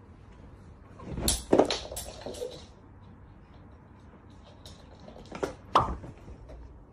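Several sharp knocks and thumps: a quick cluster about a second in, then two more near the end.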